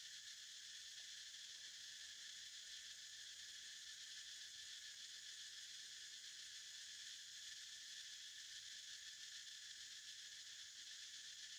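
Faint, steady chorus of insects, a high-pitched hum that runs unbroken.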